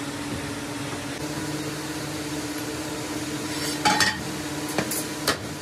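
Moulding sand being rammed into a metal casting flask with a metal rammer bar: several sharp knocks in the last two seconds, over a steady low hum.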